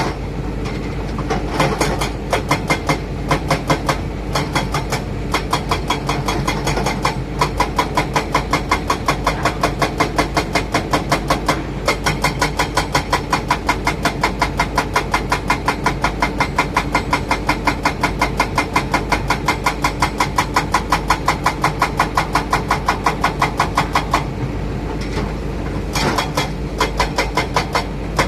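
Heavy diesel engine running with an even, regular pulsing beat of about three pulses a second, which weakens briefly near the start and again near the end.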